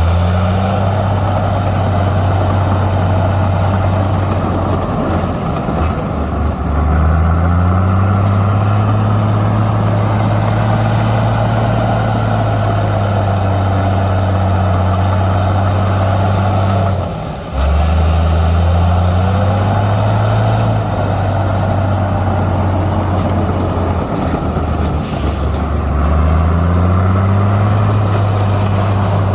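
Komatsu bulldozer's heavy diesel engine working under load, revving up and easing back about four times, its pitch gliding up each time it takes on power.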